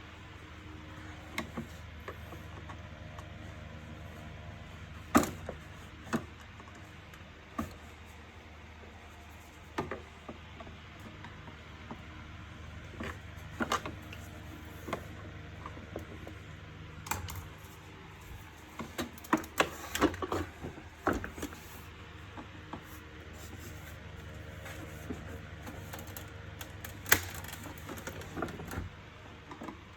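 Scattered clicks and knocks of plastic parts being handled and fitted together while a wet-and-dry vacuum cleaner's housing is assembled, busiest about two thirds of the way through, over a steady low hum.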